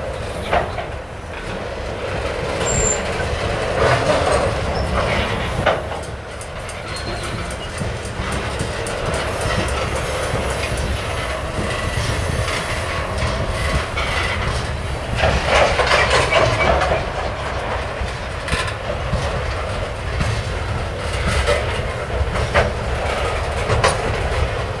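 Coal hopper cars of a slow freight train rolling past: a steady low rumble of steel wheels on rail with scattered clanks and clicks, and louder, harsher stretches about four seconds in and again around fifteen to seventeen seconds in.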